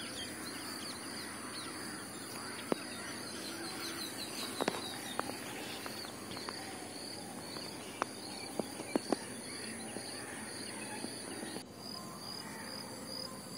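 Outdoor rural ambience of birds and insects, with a high chirp repeated over and over, and a few short sharp clicks, the loudest about five seconds and nine seconds in.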